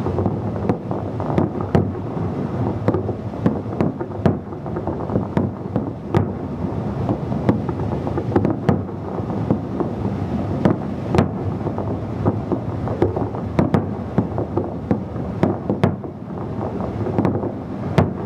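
Harbour fireworks going off in a rapid, irregular run of bangs and pops, over steady wind noise on the microphone.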